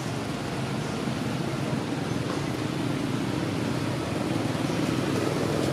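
Steady low rumble of a motor vehicle's engine running, with no sharp changes.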